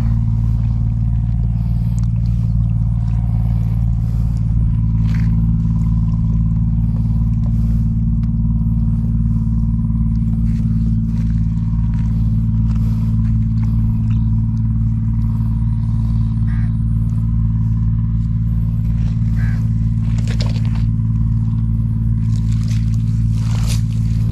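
A steady, low engine drone that holds constant throughout, with a few brief scrapes and rustles over it.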